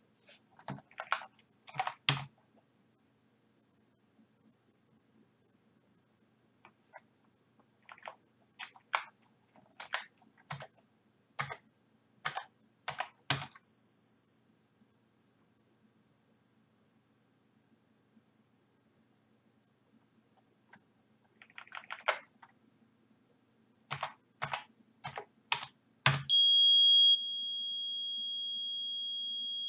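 Steady sine test tone from signal-generator software, first at 6000 Hz, stepping down to about 4870 Hz around 13 seconds in and to about 3280 Hz around 26 seconds in, each time for about a second louder just after the change. Before each change there is a run of computer-keyboard typing as the new frequency is entered. A faint low hum lies underneath.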